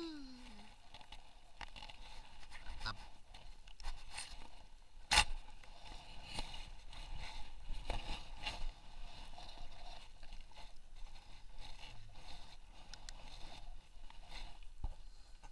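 Small fishing boat rocking at rest on the water: water sloshing against the hull, with scattered knocks and scrapes and one sharp knock about five seconds in.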